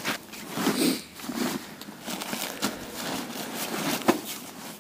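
Rustling and crinkling of synthetic tent fabric as a packed tent is handled and pulled out of its carry bag, with a short knock about four seconds in.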